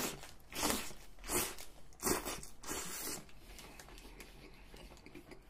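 A person biting into a burger with crisp lettuce and raw onion and chewing it. A handful of crunchy chews come in the first three seconds, then softer chewing.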